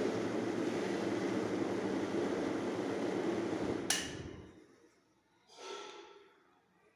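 Luminous Vento Deluxe 250 mm exhaust fan running with a steady rush of air and motor hum, then switched off with a click about four seconds in and quickly winding down. A short, fainter sound follows a moment later.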